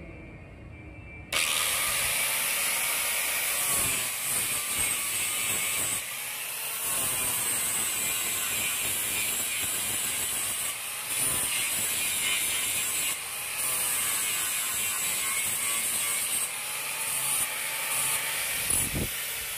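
Angle grinder with an 80-grit flap disc starting up about a second in and grinding a weld flush on thin square steel tubing, its motor pitch sagging and recovering as it is pressed against the metal.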